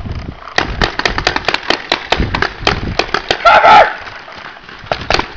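Paintball markers firing in rapid, uneven volleys of sharp pops, about five or six a second. A loud shout comes about three and a half seconds in, and after it the firing thins to a few scattered shots near the end.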